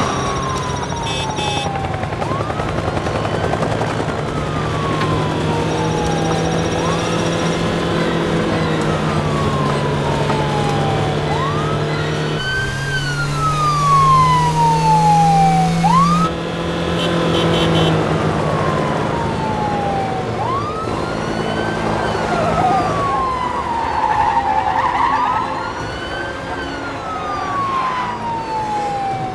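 Police car siren wailing: each cycle rises quickly, then falls slowly, repeating about every four seconds, with a car engine running steadily underneath.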